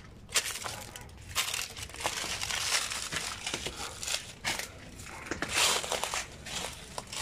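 Footsteps crunching through dry leaves and brittle twigs, an uneven crackle that swells about two seconds in and again near six seconds.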